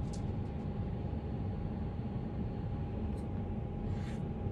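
Steady low background rumble with a faint constant thin hum through it: room noise.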